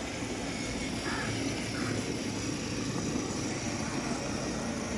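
Battery-powered ride-on toy car driving over stone tiles: a steady running sound from its electric motors and the rumble of its hard plastic wheels rolling on the tiles.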